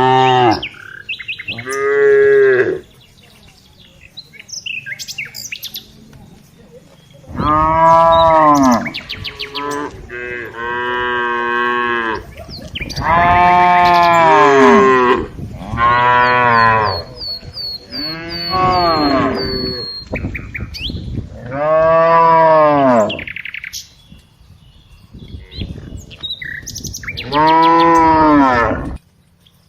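Cows mooing, a string of about nine long, drawn-out moos at different pitches, with gaps between them. Faint bird chirps are heard between the moos.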